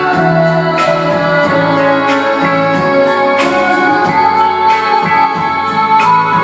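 Vietnamese pop ballad music: a melodic instrumental passage with keyboard and guitar over a steady beat.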